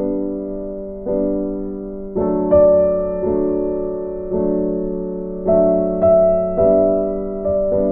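Background piano music: chords struck about once a second, each one fading before the next.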